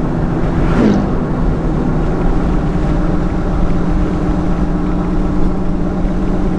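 Cab interior of a 1999 Toyota Tacoma with its 3.4L V6 cruising at about 30 mph: steady engine drone and road rumble, with a brief falling sweep about a second in.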